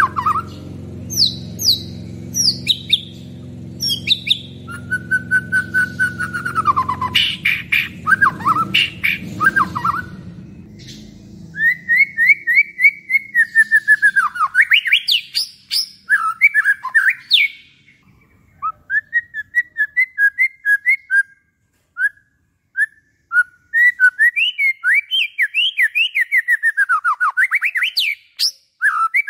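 White-rumped shama (murai batu) singing a long, varied song of clear whistles that slide up and down, mixed with fast chattering runs of repeated notes and short pauses between phrases. A low steady rumble runs underneath and fades out about a third of the way in.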